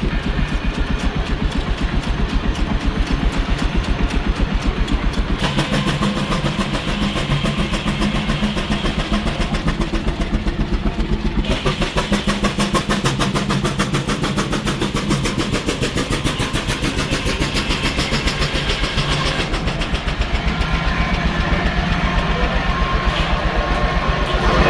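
An engine running steadily at close range with a fast, even firing beat, its tone shifting a little about five and eleven seconds in.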